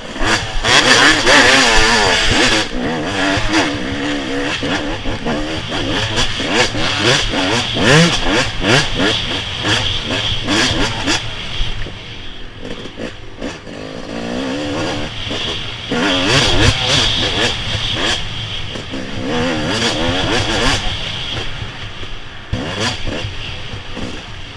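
Off-road motorcycle engines revving hard, several at once, their pitch rising and falling as the riders work the throttle and shift gears, with frequent short knocks mixed in. The engines ease off briefly twice before building up again.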